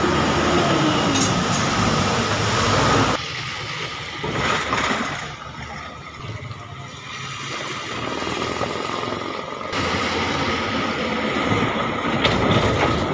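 Road traffic on a flooded street: vehicle engines and tyres running through water. It is loud for about the first three seconds, drops, then builds again near the end as a large truck's engine passes close by.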